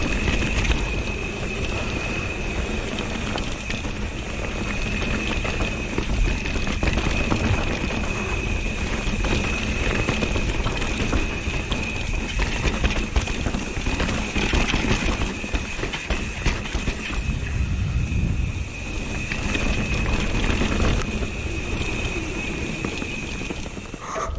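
Mountain bike descending a dry dirt singletrack at speed: tyres rolling and rattling over the loose, bumpy trail, with wind rushing over the microphone. A steady high-pitched whine runs through it and stops shortly before the end.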